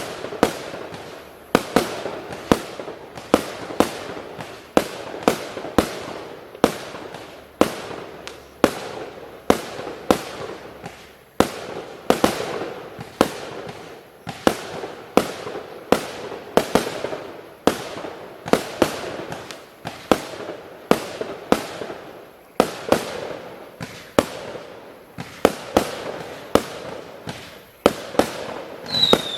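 A 20 mm, 49-shot fireworks cake firing in quick succession: sharp launch reports about two a second, each followed by a short hiss and crackle. Near the end a falling whistle sounds, the first of the whistlers in the finale.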